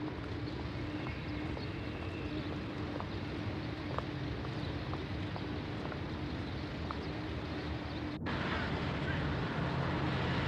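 Steady hiss with a faint low hum and scattered faint clicks, typical of an old film soundtrack. It drops out for an instant a little past eight seconds and comes back slightly louder.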